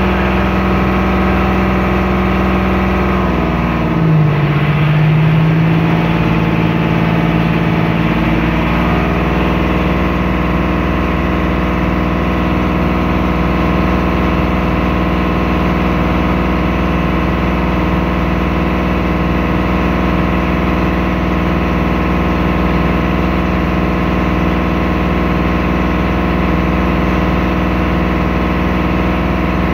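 Motorboat engine running steadily, heard from inside the boat's cabin. About four seconds in its pitch drops for a few seconds, then climbs back to a steady run.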